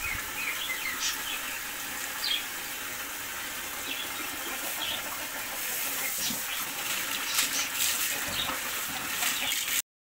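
Water poured over a dog during a bath, splashing and running onto a concrete floor, with birds chirping now and then. The sound drops out briefly near the end.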